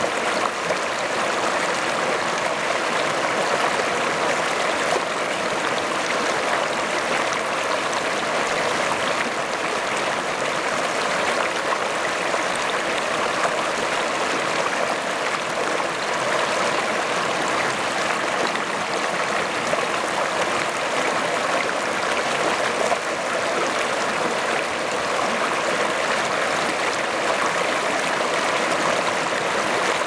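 A rocky river's rapids rushing over and around boulders: a steady, unbroken wash of white water.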